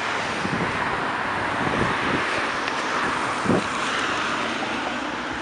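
City street traffic: cars driving past on the road, a steady hiss of tyres and engines, with a brief louder swell about three and a half seconds in.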